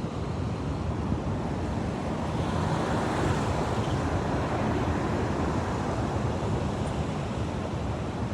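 Ocean surf breaking and washing in, with wind buffeting the microphone. The rush of a wave swells louder about two to three seconds in.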